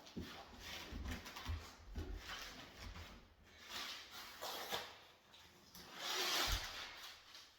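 Peel-and-stick carpet tiles being handled and laid: rustling and scuffing with soft low thumps as tiles are set down and pressed into place. The longest, loudest scrape comes about six seconds in.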